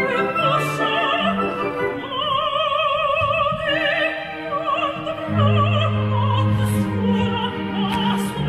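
Operatic soprano singing a high, sustained line with wide vibrato over orchestral accompaniment. About five seconds in, held low notes come in beneath the voice.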